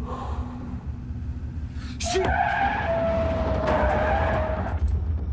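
Car tyres screeching in a skid: a sudden squeal about two seconds in that holds for nearly three seconds, sinking slightly in pitch, over the low rumble of the moving car.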